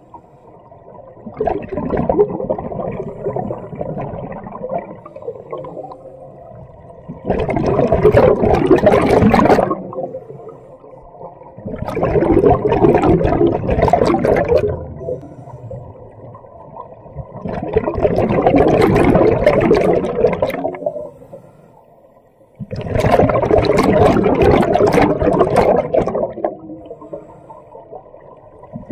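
Scuba diver breathing underwater through a regulator: exhaled air bubbles out in four loud rushing bursts, roughly every five seconds, with quieter stretches between them.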